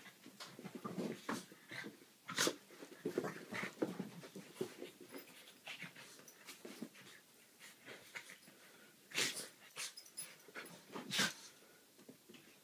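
Two dogs play-fighting: rough breathy snorts, panting and grumbling noises from the dogs, with a few sharp, louder sounds about two and a half seconds in and again around nine and eleven seconds. It quiets down near the end.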